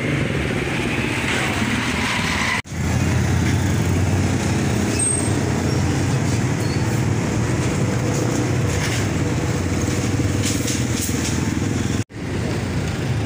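Street traffic noise: engines of passing motorcycles, tricycles and cars running steadily. It breaks off abruptly twice, about two and a half seconds in and near the end.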